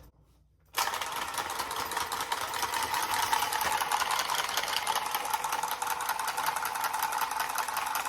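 Milwaukee M12 cordless tubing cutter starting up about a second in and running steadily as it spins its cutting wheel around copper tube: a small motor's whir with a fast, even clatter.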